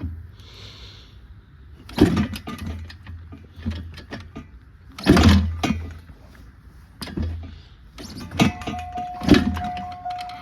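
Kawasaki dirt bike being kickstarted again and again: several kicks, each a thud with the engine turning over briefly but never catching, because the fuel tap is turned off. A steady musical tone comes in about eight seconds in.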